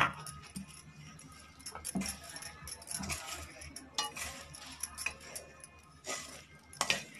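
Bangles on the wrist jingling and clinking irregularly against each other and the steel bowl as a hand mixes chopped fenugreek leaves and gram flour, with soft scraping of the leaves in the bowl.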